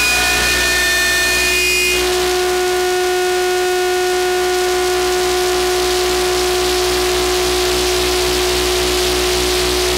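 Background music: a long held chord over a low drone, moving to a new held chord about two seconds in.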